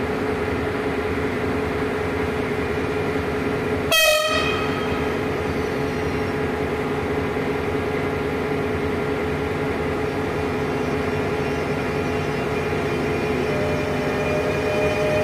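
Siemens Velaro HT high-speed train sounding one short horn blast about four seconds in, over a steady hum made of several pitched tones. Near the end new tones join in and the sound grows louder as the train approaches.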